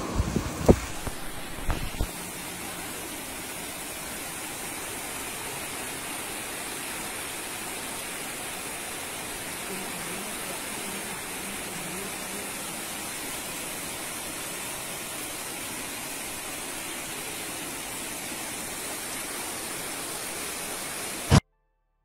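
Wind gusting hard against the microphone in a rainstorm for the first two seconds. Then a steady, even rush of fast-flowing floodwater running through a street, which cuts off abruptly near the end.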